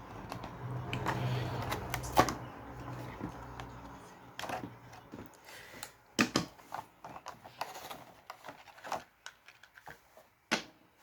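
Cardboard box and plastic packaging being opened and handled: rustling over the first few seconds, then scattered sharp clicks and light knocks.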